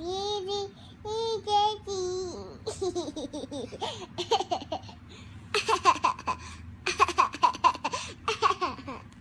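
Baby laughing: a couple of long, high, gliding coos at first, then several fits of quick, repeated bursts of giggling laughter.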